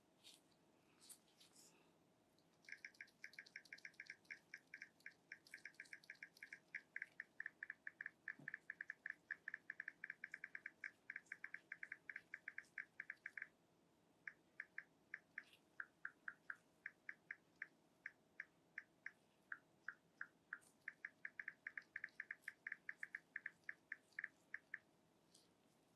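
Long runs of short, high-pitched ticks, several a second, in irregular bursts with a brief pause about halfway through, in the pattern of typing on a smartphone's on-screen keyboard with key-press sounds on.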